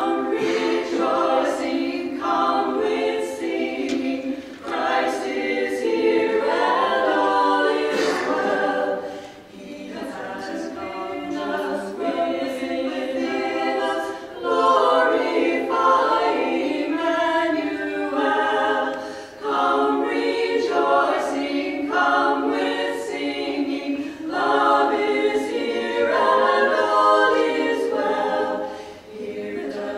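Women's vocal quartet singing a cappella in harmony, in phrases with short breaks between them.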